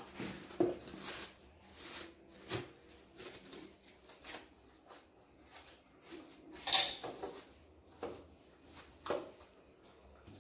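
Plastic cling wrap being pulled off its roll and stretched over a bowl: irregular crinkling and crackling with light taps of handling, loudest about seven seconds in.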